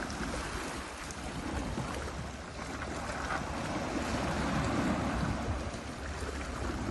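Sea surf washing against rocks, swelling and easing, with wind rumbling on the microphone.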